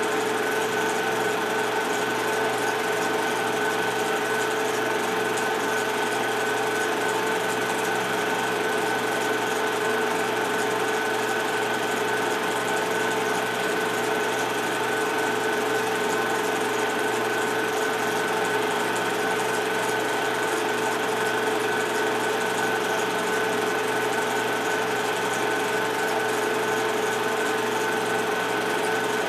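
Steady whirr and clatter of a film projector's motor and mechanism running, with a constant hum and hiss and no other sound.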